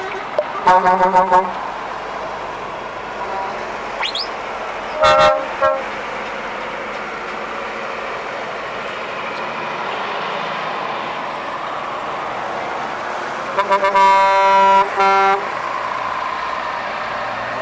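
Scania and DAF tractor units driving off, their diesel engines running steadily, while truck air horns sound a few short toots about a second in, one blast about five seconds in, and a longer run of toots near the end.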